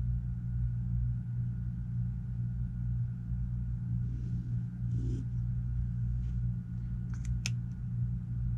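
Steady low hum, with a faint scratching of a pen drawing a line on cotton fabric along a quilting ruler about four to five seconds in, and a light click near the end as the ruler is set down.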